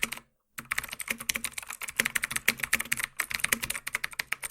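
Rapid typing on a computer keyboard: a dense, fast run of key clicks, several a second, with a short break just after the start.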